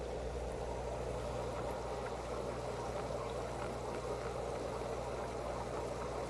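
Aquarium filter running: a steady low hum under an even hiss of moving, bubbling water.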